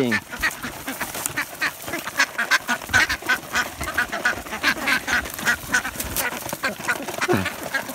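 A flock of ducks quacking in quick, short calls, several a second, as they crowd together and feed.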